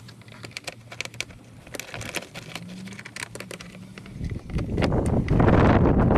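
Light clicks and knocks of rubber hoses and plastic coolant-reservoir parts being handled in an engine bay. About four seconds in, a loud, rough rushing noise starts and drowns them out.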